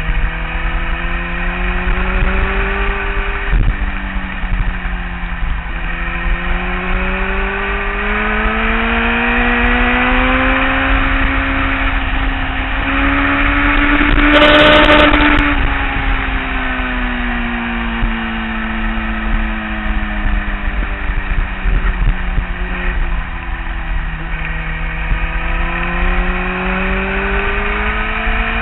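Kawasaki ZX-10R's inline-four engine under way at a track pace, its note slowly rising through the first half, falling, then rising again near the end, with a short break about three and a half seconds in. A loud burst of noise about halfway through is the loudest moment.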